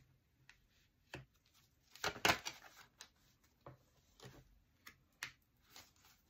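Oracle cards being handled: drawn from a deck and laid down on a velvet cloth, a scattering of soft card clicks and rustles, loudest about two seconds in.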